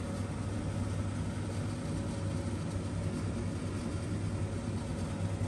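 A steady low hum under an even hiss, unchanging throughout, like a fan or motor running.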